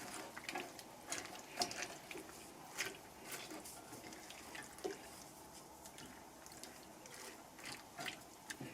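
Stirring rice noodles, chicken and vegetables in a pan with water just added: faint wet sloshing with scattered light clicks and scrapes of the utensil.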